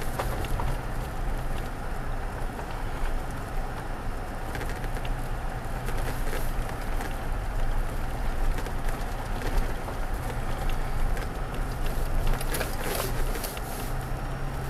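Cabin noise of a 2016 Toyota Tacoma TRD Off Road driving slowly over a rough dirt road: a steady low engine and tyre rumble with scattered clicks and knocks, most of them in the middle and near the end.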